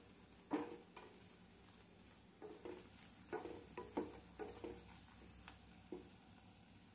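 A wooden spatula turns bread cubes frying in ghee in a stainless steel pan, making a scatter of quiet knocks and scrapes against the metal over a faint sizzle.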